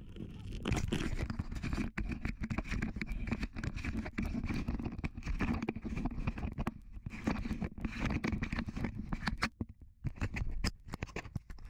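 Close rustling and scraping of clothing and hands rubbing against a body-worn action camera, a dense irregular run of crackles and scuffs that breaks off briefly about ten seconds in.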